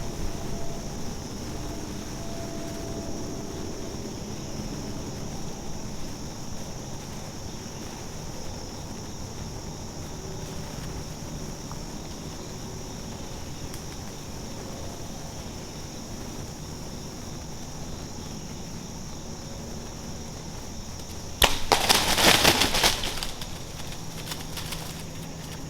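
A compound bow shot at a wild turkey tom: a sudden sharp crack of the release and hit, followed by about a second and a half of loud wing flapping and thrashing as the struck bird jumps around.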